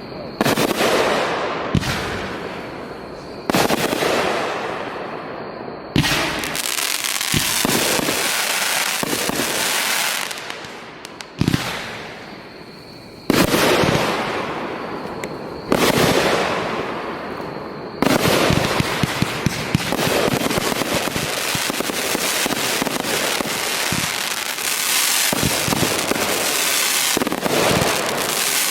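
Fireworks display: shells going off one after another, each sharp bang trailing off into hiss and crackle, then a dense barrage of rapid cracks and bursts through the last ten seconds or so.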